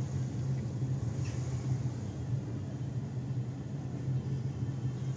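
Car driving, with a steady low engine and road rumble.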